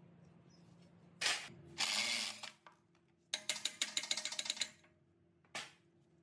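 Hand-tool work on a machine: a knock and a short rasp, then a ratchet wrench clicking rapidly for about a second and a half, and one more click near the end.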